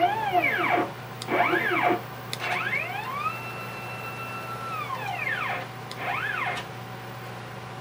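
CNC router stepper motors jogging the axes into position, making four separate motor whines. Each whine rises in pitch, holds and falls as the move speeds up and slows down. The third move, in the middle, is the longest and holds a steady pitch for over a second. A steady low hum continues underneath.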